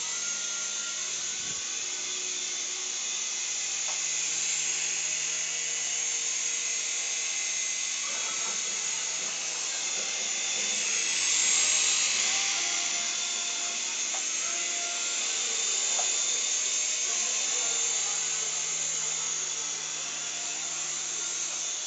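Small remote-control toy helicopter in flight, its tiny electric motors and rotors making a steady high-pitched whine that swells louder for a couple of seconds near the middle.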